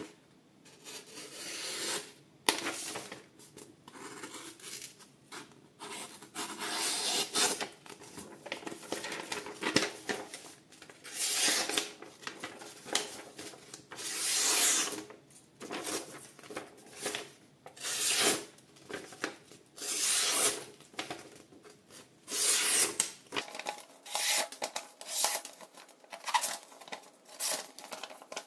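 Camillus folding knife blade slicing through paper: a long series of rasping cuts, some short and some drawn out over a second or so.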